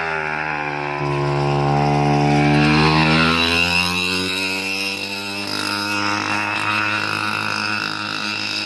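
A mini motorcycle's small engine running as the bike rides past. It grows louder about a second in, drops in pitch around three seconds as it goes by, then runs on steadily.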